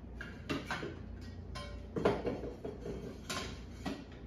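Light metallic clinks and knocks as a metal shelf bracket is handled and held up against the wall: about five separate taps, the loudest about halfway through, with a brief ringing note just before it.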